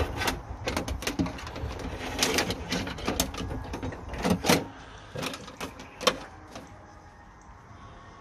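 Irregular clicks and knocks of handling, with a few louder knocks in the middle, over a steady low rumble; it goes quieter for the last couple of seconds.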